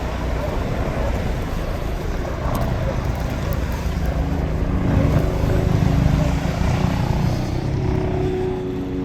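A motor vehicle's engine coming up close, loudest about halfway through and then easing off, over a steady background hiss.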